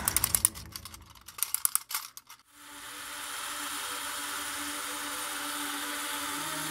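A quick, irregular run of small sharp clicks and ticks lasting about two and a half seconds, then a soft steady drone with a few held tones.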